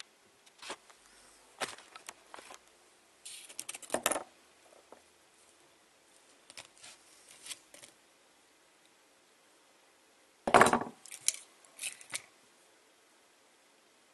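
Wire cutters snipping and stripping thin hookup wire: scattered clicks and short crisp snips, with the loudest snap about ten and a half seconds in.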